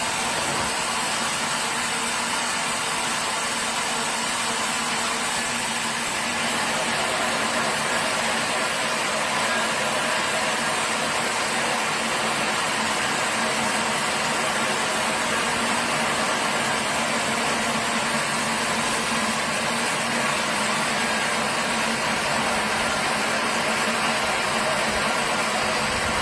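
A sawmill's engine-driven machinery running steadily, a little louder from about six seconds in.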